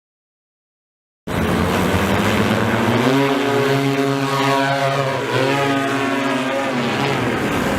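Propellers of a single-seat personal flying machine humming in flight. Their pitch dips and rises as the craft manoeuvres. The sound starts abruptly about a second in, after silence.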